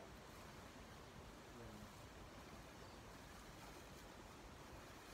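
Near silence: faint outdoor background hiss, with a brief faint pitched sound about one and a half seconds in.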